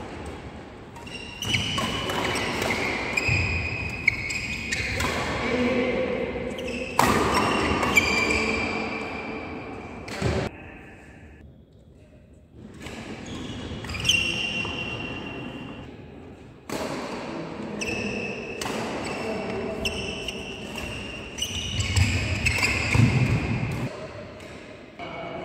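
Badminton rallies in a large indoor hall: sharp racket strikes on the shuttlecock and thuds of players' feet on the court, with players calling out. There is a brief lull about halfway through.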